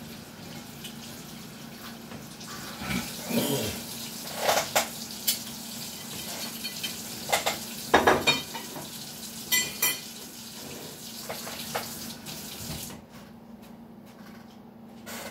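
Kitchen tap running into a stainless steel sink while dishes are rinsed, with several clinks and knocks of plates and dishware. The running water stops near the end.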